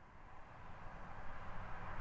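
A car approaching on a highway, its tyre and road noise with a low rumble growing steadily louder as it nears.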